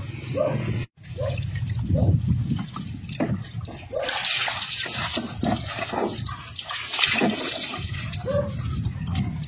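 Water poured from a dipper splashing over a person's shoulders and onto the ground, in a long splash about four seconds in and a shorter one around seven seconds. A dog whimpers a few times in between.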